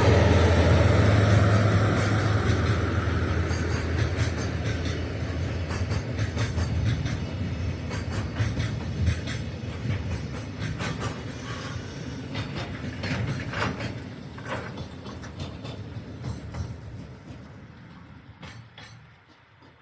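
Freight train hauled by a DF200 diesel-electric locomotive: the locomotive's low engine drone fades, then the container wagons rattle and click over the rails. The whole train's sound dies away near the end as it slows to a stop.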